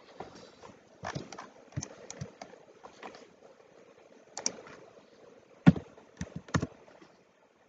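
Scattered clicks and taps of a computer mouse and keyboard while a value is edited, the loudest a sharp knock a little past the middle, over a faint steady hiss that drops away near the end.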